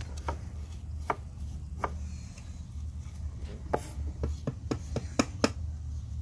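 Light, irregular taps and clicks of paintbrushes and paint pots against a wooden birdhouse and table during painting, about a dozen, with a steady low hum underneath.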